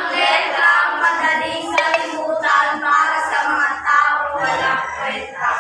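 A group of students singing together in unison, with held notes.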